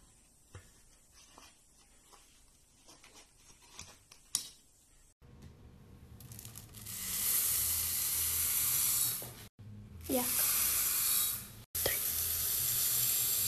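Hard wax beads poured from a scoop into a stainless-steel wax warmer: a loud, dense rattling hiss of many small beads, in three stretches of a few seconds each with abrupt breaks between them. Before it come a few faint clicks and taps.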